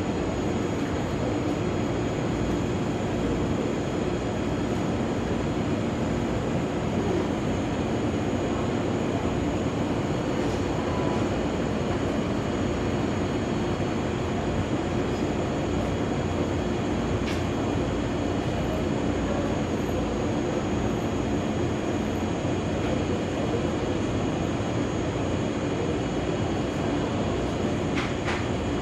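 Parked ex-Nanao Line express electric train standing at the platform, its roof-mounted air conditioners and onboard equipment humming steadily, with a faint click about halfway through and another near the end.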